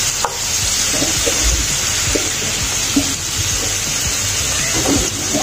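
Marinated mutton chops sizzling as they fry in a little oil on a ridged grill pan, a steady hiss with scattered small pops.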